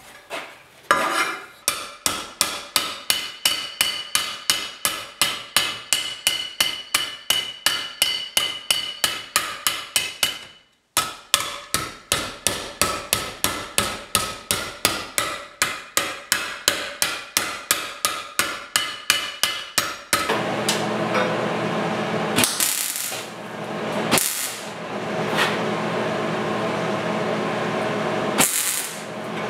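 A hammer strikes a sheet-steel patch panel clamped in a bench vise in quick, ringing blows, about three a second, bending down the panel's edge into shape. There is a brief break about eleven seconds in. About twenty seconds in, the hammering gives way to a steady hissing buzz that swells now and then.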